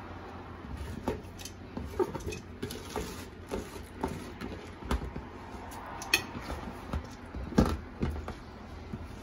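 Raw rice being tipped from a plastic bowl into a stainless-steel pot, with irregular knocks and clatters as the bowl and hand work against the pot; the loudest knock comes about seven and a half seconds in. A steady low hum runs underneath.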